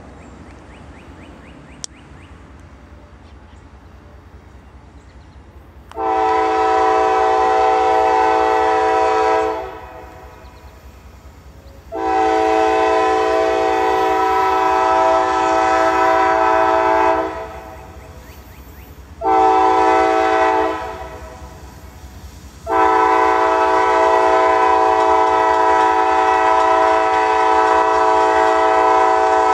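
CSX freight locomotive's multi-chime air horn sounding the grade-crossing signal: two long blasts, a short one, then a final long one held on. Several notes sound together as one chord over the rumble of the train.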